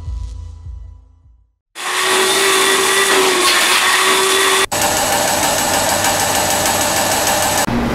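Music fading out, then loud, steady bread-factory machinery: a mechanical whir with a few steady tones that changes abruptly about halfway through and again near the end.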